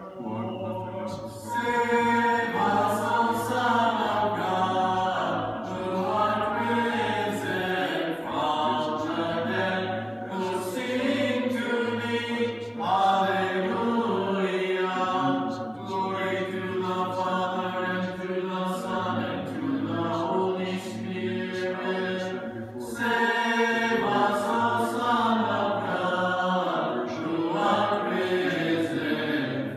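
Orthodox church choir chanting a liturgical antiphon a cappella, several voices moving over a steady held low drone.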